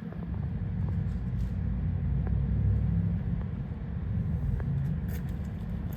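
A low, steady rumbling noise with a few faint ticks.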